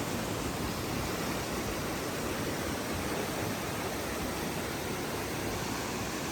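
Waterfall and creek water rushing steadily, an even hiss of falling and cascading water.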